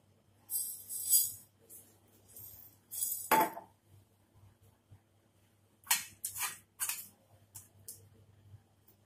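Handling noise from a phone being picked up and moved close to the microphone: short rustles, scrapes and knocks in a few clusters, over a faint steady low hum.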